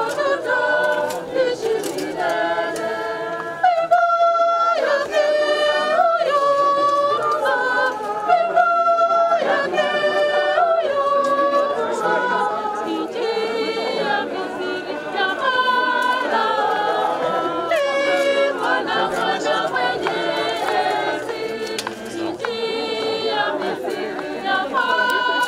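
A choir of mixed voices singing a hymn unaccompanied, in held notes that move from one pitch to the next.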